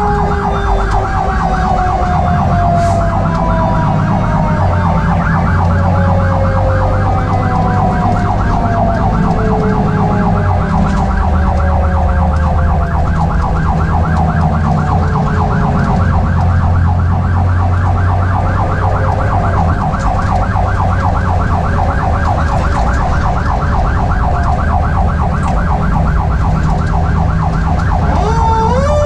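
Fire engine responding with sirens: a fast-warbling siren sounds over a Federal Q mechanical siren whose wail slowly winds down, then is spun back up with a sharp rise near the end. The truck's engine rumbles underneath.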